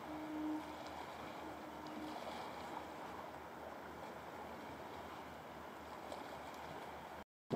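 Steady outdoor background noise, an even hiss with no distinct events, with a faint low hum in the first two seconds.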